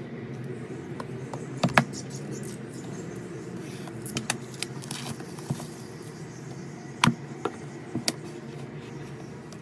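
Album packaging being handled: scattered sharp clicks and taps with light rustling of plastic and card, the loudest a quick double click early on and a sharp click later, over a steady low hum.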